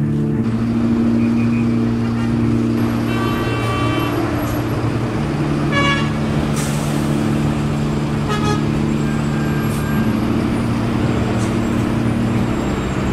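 City street traffic noise from buses and cars, with car horns honking several times: a longer blast a few seconds in and short toots around the middle.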